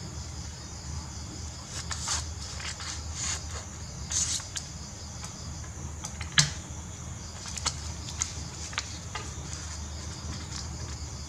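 Scissors snipping through paper a few times, then paper rustling as it is handled, with a sharp click about six seconds in. Under it runs a steady high chirring of crickets and a low hum.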